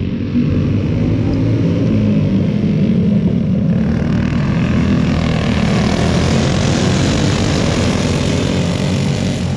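A pack of racing go-karts with their small engines buzzing together at speed. From about four seconds in the sound grows brighter and a little louder as the pack comes through the turn and passes close by.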